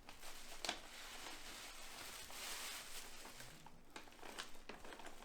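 Faint crinkling and rustling of gift wrapping paper as a present is unwrapped, with a few light clicks.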